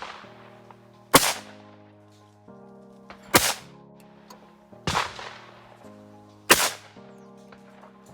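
Four shotgun shots at clay targets, the loudest about a second in and the others spaced roughly one and a half to two seconds apart, each a sharp crack with a short tail, over background music.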